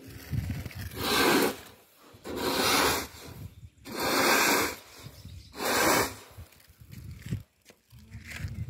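Dried corn kernels being scooped off concrete with a tin container: four rasping scrapes, each about a second long, coming about every one and a half seconds, then a quieter stretch near the end.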